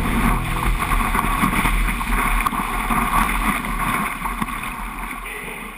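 Whitewater rushing and spraying around a surfboard riding a small broken wave, with wind buffeting the board-mounted action camera's microphone. The rush slowly fades near the end.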